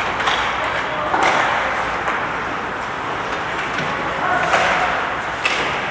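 Ice hockey play on a rink: skate blades scraping and carving the ice and sticks clacking against the puck and each other, several sharp clacks, with players calling out.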